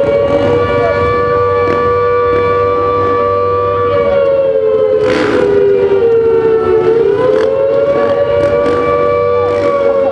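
A sustained siren wail on two close notes, steady for several seconds, its pitch sagging about five seconds in and climbing back near seven seconds. A brief rush of noise cuts across it about five seconds in.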